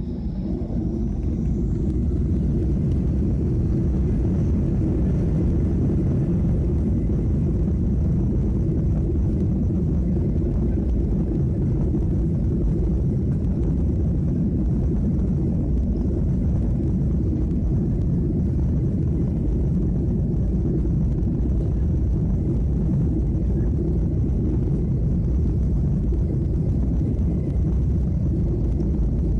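Jet airliner's engines heard from inside the cabin, spooling up for takeoff with a rising whine over the first couple of seconds, then running steadily at high power with a deep, even rumble.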